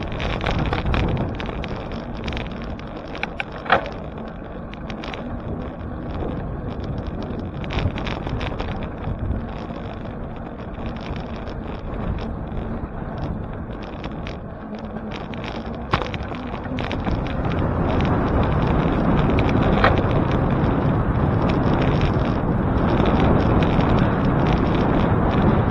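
Riding noise from a bicycle in motion: wind on the microphone and road rumble from the tyres, with a few sharp clicks. It grows louder about two-thirds of the way through.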